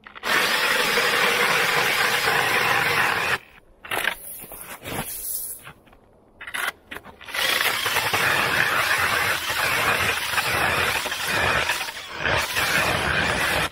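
Cordless drill driver turning a 130 mm ice auger, its motor and the auger's grinding cut through thick lake ice. It runs for about three seconds, stops for a few seconds with only short scrapes, then runs again for about six seconds.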